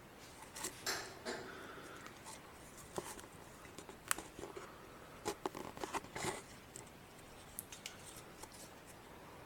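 Faint, scattered clicks, taps and rustles of raw food being handled and set down in a small room.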